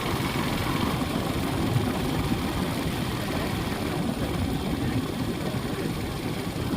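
Steady rumble of a vehicle on the move: engine and road noise with a fluttering low buzz.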